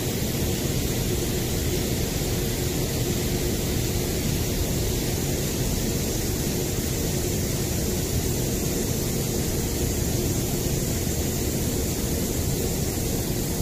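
Overhead high-pressure misting system spraying a fine fog: a steady, even hiss over a low machine hum with a faint constant tone, unchanging throughout.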